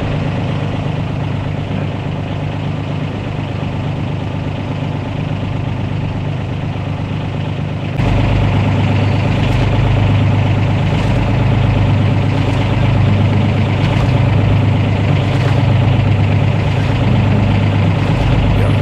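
Fishing boat's engine running steadily under way, a constant low drone. About eight seconds in it suddenly gets louder and deeper.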